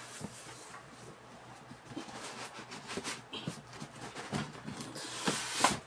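Handling noise from unpacking a PC case: scattered light rustles and knocks, with a louder rustle about five and a half seconds in.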